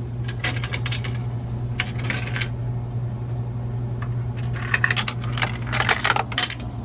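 Coins clattering through a jammed drink vending machine's coin mechanism in four short runs of rapid clicks, over a steady low hum. The mechanism is not catching the coins, so they drop straight through.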